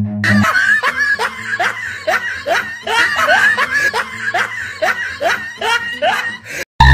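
Laughter: a rapid string of short rising 'heh' sounds, about two a second, over a low steady drone. It cuts off abruptly near the end.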